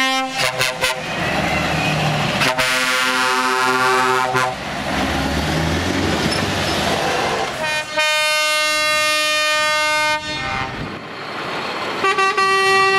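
Truck air horns sounding as lorry tractor units drive off one after another, with diesel engines running underneath. There is a short blast at the start, a wavering two-second blast about two and a half seconds in, a long loud blast about eight seconds in, and another near the end.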